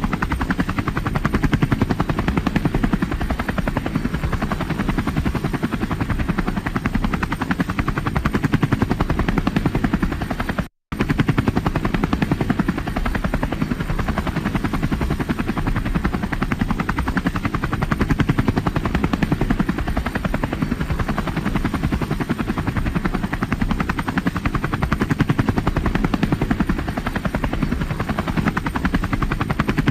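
A helicopter flying, its rotor beating fast and evenly with a steady engine. The sound cuts out for a moment about eleven seconds in, then carries on as before.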